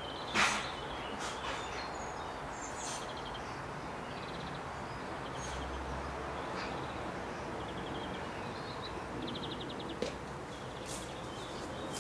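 Outdoor background with short, high, rapid chirping trills from small birds scattered throughout. A sharp click, the loudest thing, comes about half a second in, and a smaller one near the end.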